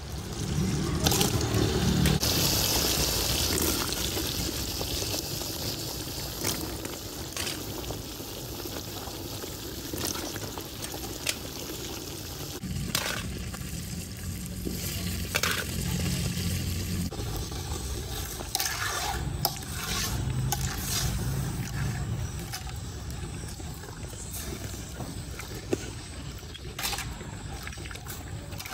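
Metal ladle scooping wet boiled sugar palm seeds (dac) in an aluminium colander: wet sloshing and stirring sounds with scattered clicks of metal on metal.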